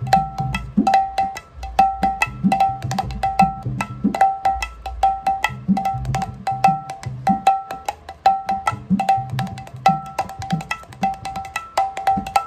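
Mridanga being played in a quick, even rhythm: sharp strokes on the small treble head that ring at a clear high pitch, mixed with deep bass strokes on the large head that bend in pitch.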